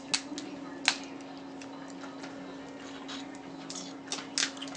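Snow crab leg shells cracking and snapping as they are broken apart by hand. Two sharp cracks come near the start and a few more near the end, over a steady low hum.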